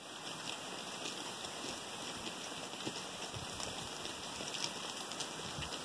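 Steady outdoor background noise: an even hiss with faint scattered ticks.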